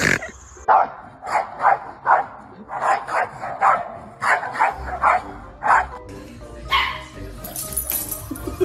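A corgi barking in a quick run of short, sharp barks, two or three a second, for about five seconds. Music takes over about six seconds in.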